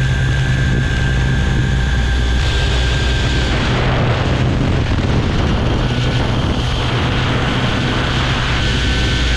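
Align T-Rex 700E electric RC helicopter heard from its onboard camera in flight: a steady low rotor beat with a high, steady whine. From about three and a half seconds in, the whine drops away under wind noise on the microphone, returning near the end.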